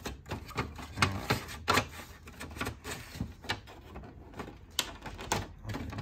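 Irregular plastic clicks and knocks from the HP Color Laser MFP 178nw laser printer's covers being handled: the opened front door and the side cover's latches being worked by hand.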